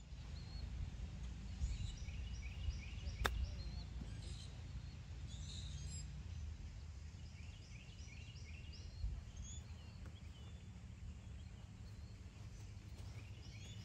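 A lob wedge chipping a golf ball off the fairway: one sharp click about three seconds in. Birds sing in repeated chirping phrases throughout, over a steady low outdoor rumble.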